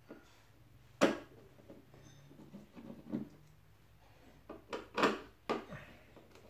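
Hands and tools at the plastic door trim around the power-window master switch while its screws are being removed: a sharp click about a second in, then scattered knocks and scrapes.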